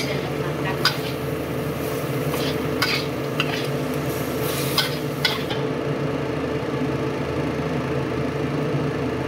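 Metal spatula stirring and tossing shredded chicken in a wok, with sharp scrapes and clinks against the pan about five times in the first half, over a light sizzle and a steady hum.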